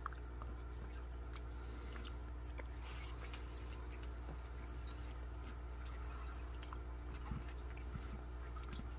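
Quiet eating sounds: a spoon scooping gravy-soaked stuffing off a ceramic plate, a few faint wet clicks and chewing, over a steady low hum.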